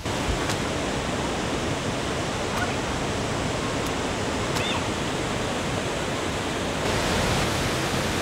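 Steady rush of water pouring down a large stepped concrete fountain, a little louder near the end.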